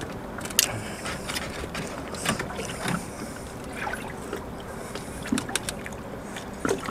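A man eating pizza by hand: chewing, with scattered short mouth clicks and smacks over a steady background noise.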